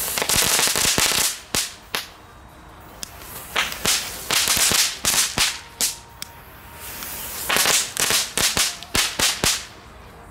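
WECO Blitzknatterbälle, small crackling-ball fireworks, going off on the ground. They make hissing sprays of sparks broken by sharp crackling pops, in three bouts about three to four seconds apart.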